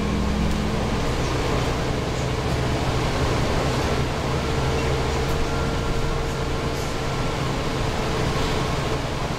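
Interior of a New Flyer Xcelsior XD40 diesel bus under way, heard from the rear seats: the steady drone of its Cummins ISL9 diesel engine with road noise and ventilation rush, and a faint steady whine over it.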